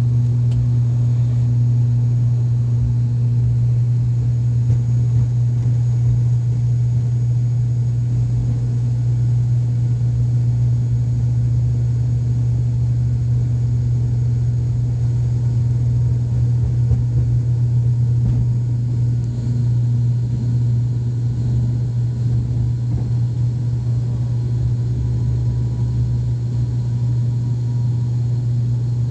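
Cabin noise of an ATR 72-600 at takeoff power: its Pratt & Whitney PW127M turboprops and six-blade propellers drone loud and steady. A strong low hum sits at the propeller blade rate through the takeoff roll and climb-out.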